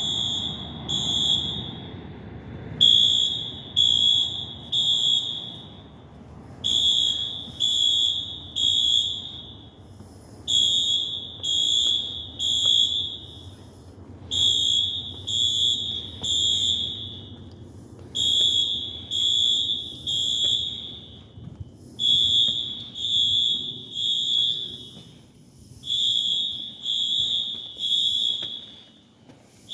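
Subway station fire alarm sounders beeping loudly in a high tone, in repeated groups of three beeps with a pause between groups, the temporal-three evacuation pattern.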